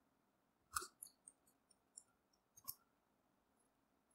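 A few faint, separate computer keyboard key presses, about six scattered clicks within two seconds, with near silence around them.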